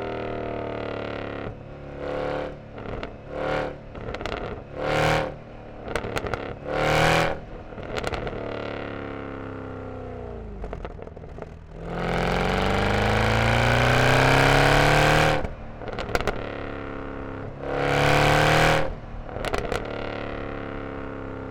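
Mercedes E63 AMG M156 V8 through a resonator-deleted exhaust. It blips the throttle several times, then the revs sink away. It then pulls hard for about three seconds with rising pitch, the loudest part, and sharp exhaust crackles follow when it lifts off. One more short rev blip comes near the end.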